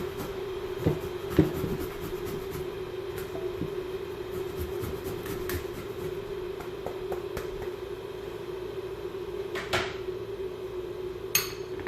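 Kitchen handling sounds: a few knocks about a second in, a louder click near the end and more clicks at the very end, over a steady low hum.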